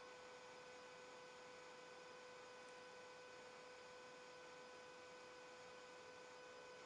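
Near silence with a faint, steady hum: one high tone with a couple of fainter overtones above it.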